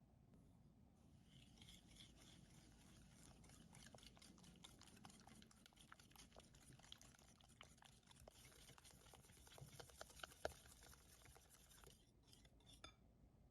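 Faint kitchen-work sounds: fast, dense clicking and scraping that starts about a second in and stops near the end, with one sharper click about ten seconds in.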